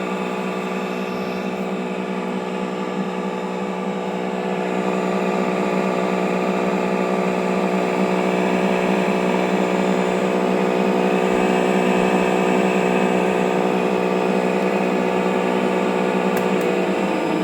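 Electric motor of a TruHone HR8 knife honer running with a steady hum that gets a little louder about five seconds in. The owner says this motor has started making a knocking noise, as if a bearing is worn out, and suspects moisture got in and corroded it.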